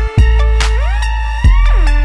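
Background electronic music: a deep bass note re-struck about once a second under synth tones that glide up and down in pitch.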